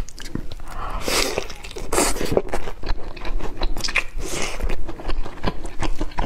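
Crunchy bites and chewing of breaded fried chicken, in repeated crackly bursts close to the microphone.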